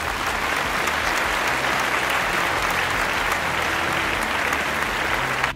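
Applause: steady clapping that swells in and then stops abruptly near the end.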